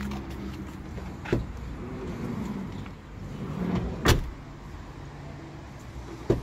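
Three sharp knocks on the Kia Sedona minivan's closed rear sliding door over a low steady hum. The loudest knock comes about four seconds in.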